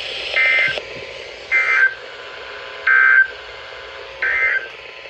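Emergency Alert System end-of-message signal: four short warbling bursts of SAME digital data, about 1.3 s apart, marking the end of the alert.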